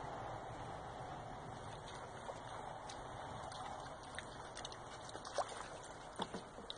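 Kayak paddles dipping into calm river water: a faint steady wash of water with a few sharp splashes and drips in the second half.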